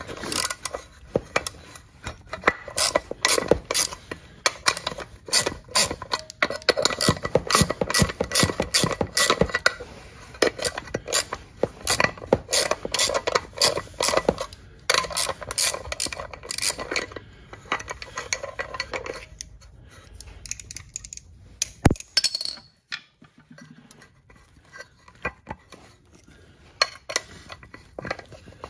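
Ratchet wrench clicking in long runs as the nuts are backed off the cover plate of a snowmobile secondary driven clutch, with metal parts clinking. The clicking stops at about 19 s; a single loud metallic knock comes a few seconds later, then only scattered light clinks.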